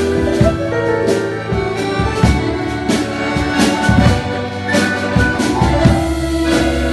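Piano accordion playing a tango: sustained melody notes over short, sharply accented rhythmic chords.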